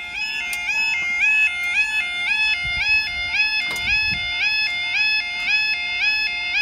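Level-crossing warning alarm sounding its two-tone yodel, repeating about three times a second, while the barriers lower. A single knock about four seconds in, as the barrier boom comes down to rest.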